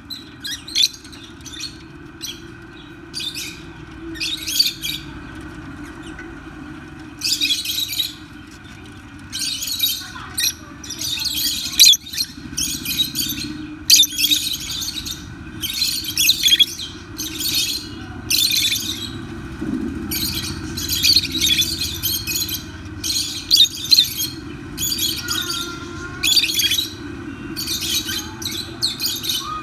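Rosy-faced lovebirds chirping: short, shrill calls in quick runs, one after another, over a steady low hum.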